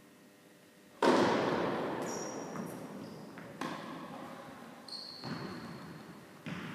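Tennis ball impacts echoing in a large indoor tennis hall: one sharp, loud hit about a second in that rings on for a couple of seconds, then fainter knocks every second or two. A few short high squeaks come in between.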